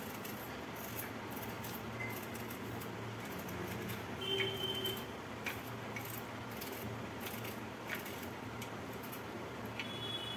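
Small kitchen knife cutting into bitter gourds and scraping out the seeds over a steel plate: faint scattered clicks and scrapes over a steady low hum. A short high tone sounds about four seconds in and again near the end.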